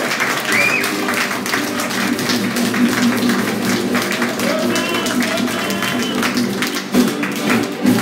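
Acoustic guitar strumming in a quick rhythm over held fiddle and upright bass notes: a small string band playing.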